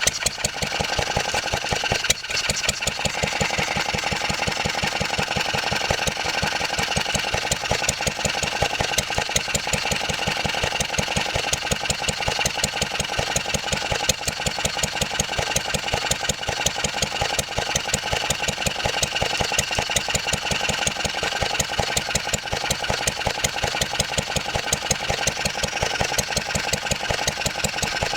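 1954 Wolseley WD8 stationary engine running steadily, its firing strokes making an even, rapid beat.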